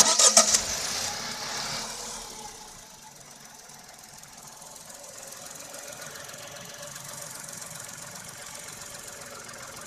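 Tata Altroz engine: a loud burst with a few sharp clicks in the first half-second, fading over about two seconds into a steady, quieter idle.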